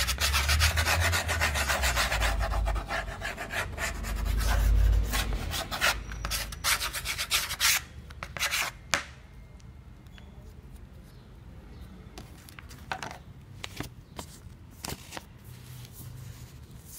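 The plastic tip of a glue bottle rubbed rapidly back and forth over a 3 mm backing board, spreading glue: a fast, rasping scrubbing for about eight seconds. After that come only a few separate scrapes.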